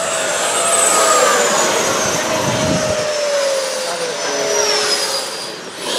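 Radio-controlled model jet's turbine whine, its high tones falling slowly in pitch as it flies past.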